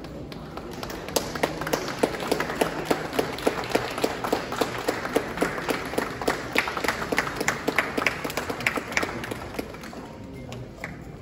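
Audience clapping, one person's claps close and sharp at about four a second, starting about a second in and dying away near the end.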